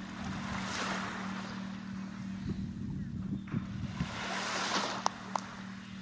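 Small sea waves washing up a sand-and-pebble shore, with a surge of hiss about a second in and another around four to five seconds. Wind buffets the microphone under a steady low hum, and two sharp clicks come near the end.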